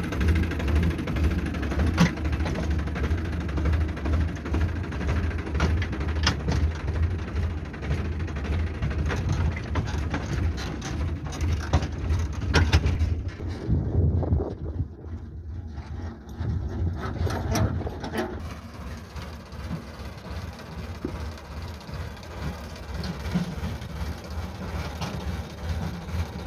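Sonalika tractor's diesel engine running with a steady low rumble as it pulls a loaded trolley, with occasional sharp knocks and rattles. The engine sound becomes quieter after about two-thirds of the way in.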